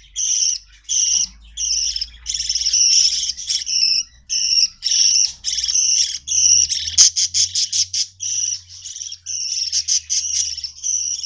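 Budgerigars calling: a steady string of short, harsh calls, about two a second. A quick run of sharp clicks comes about seven seconds in.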